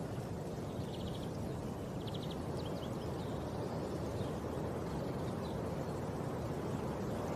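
Steady low outdoor rumble with no distinct impacts. Faint, quick trills of bird chirps come through about a second and two seconds in.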